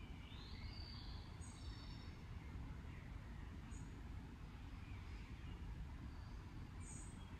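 Faint outdoor background: a steady low rumble with a few short, high bird chirps scattered through it.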